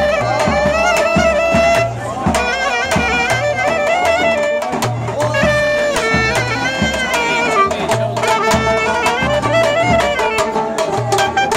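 Live Turkish folk music: a clarinet playing a winding, ornamented melody over a plucked cümbüş (a banjo-like lute), with a steady low beat underneath.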